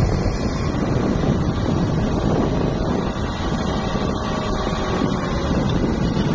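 Massey Ferguson tractor's diesel engine running steadily under load while its hydraulics tip a trolley and the soil slides out, with wind buffeting the microphone.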